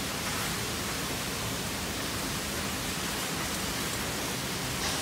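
Steady, even hiss of background noise with no rhythm or pitch, and a brief sharper sound near the end.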